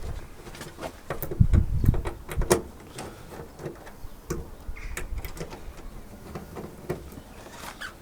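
Scattered light clicks and taps of hands working small parts on a van's wing-mirror mounting, trying to get screws to start in their threads, with a few heavier knocks in the first two and a half seconds.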